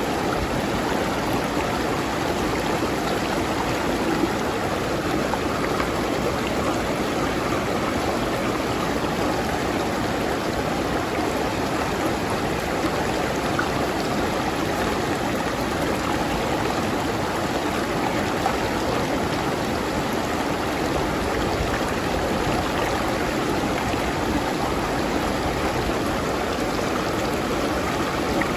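River stream flowing over rocks: a steady rush of water with bubbling and trickling, unchanging throughout.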